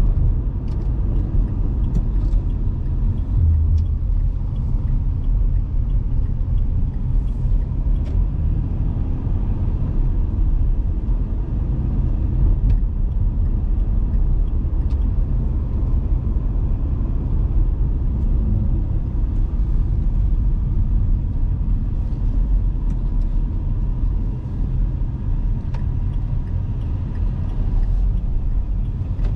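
Dacia Duster's 1.2 TCe turbocharged four-cylinder petrol engine and tyres heard from inside the cabin while driving at town speeds: a steady low rumble of engine and road noise.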